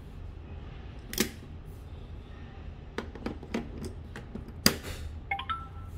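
Hard plastic clicks and knocks as picture blocks are pulled out of and pushed into the slot of a bonbebe 6in1 Mega Cube toy, the loudest knock past the middle. A short electronic tone from the toy comes near the end as it reads the newly inserted block.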